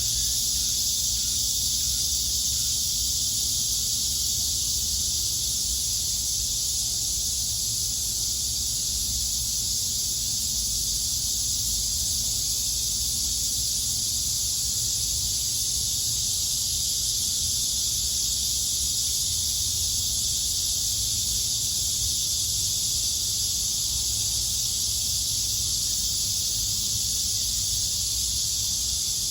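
Chorus of cicadas: a dense, steady high-pitched buzz that holds without pause, with a faint low rumble underneath.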